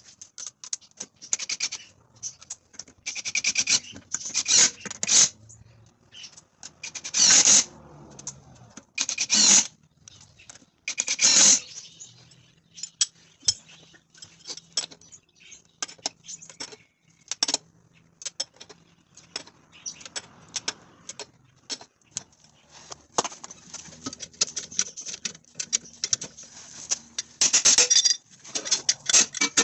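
Hand work on a car: scattered clicks and small metallic clinks, with several loud rasping bursts about a second long, near the start, around a third of the way in and again near the end.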